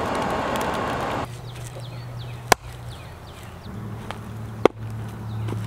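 A hatchet chopping wood on a stump: two sharp chops about two seconds apart. For about the first second, before them, there is a steady rushing noise from the forge fire.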